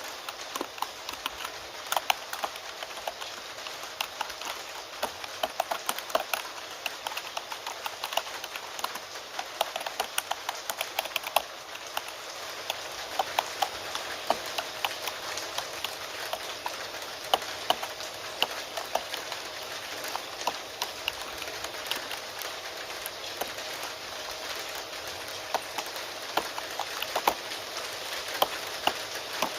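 Keyboard typing, quick irregular key clicks, over a steady patter of rain.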